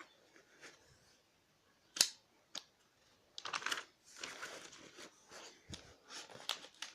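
Pages of a book being turned and handled: paper rustling with several sharp clicks, the loudest about two seconds in.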